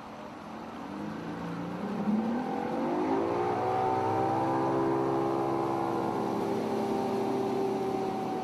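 Boat's outboard motor accelerating to a full-throttle run: its pitch climbs over about two seconds, then holds steady and fades slightly near the end.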